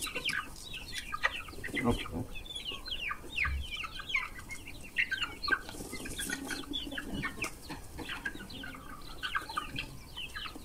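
A flock of young chickens clucking continuously as they compete for corn, many short calls overlapping one another.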